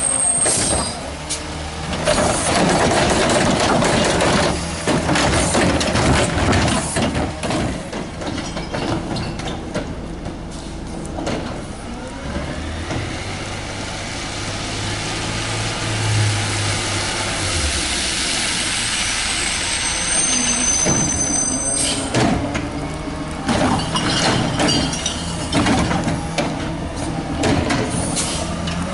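Compressed-natural-gas-powered Autocar ACX garbage truck with a McNeilus Meridian front-loader body and Curotto-Can arm, its engine running as it works along the street. A steadier engine tone swells in the middle, and a string of sharp clanks comes in the last third.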